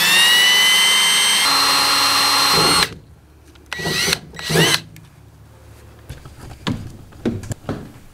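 Ridgid 18V cordless drill running at high speed, drilling through body filler and the bus's sheet-metal side panel. Its whine rises in pitch as it spins up, holds, then stops abruptly about three seconds in. Two short bursts follow about a second later, and a few light knocks come near the end.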